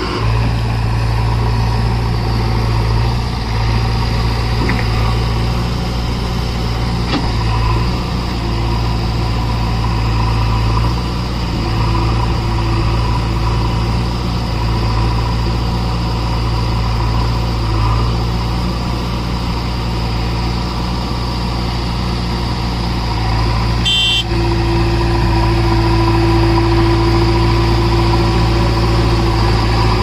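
JCB 3DX backhoe loader's diesel engine running steadily while the backhoe digs. About 24 seconds in there is a brief click, and a steady higher hum joins the engine drone after it.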